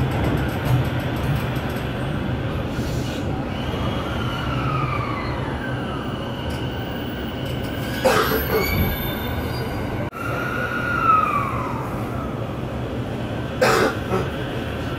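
Electric commuter train arriving at a station, heard from inside the car: a steady low rumble, two whines a few seconds apart that each rise briefly and then fall away, and two sharp knocks, one about halfway through and one near the end.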